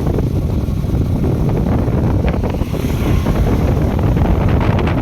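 Loud, steady low rumbling noise, typical of wind buffeting the microphone.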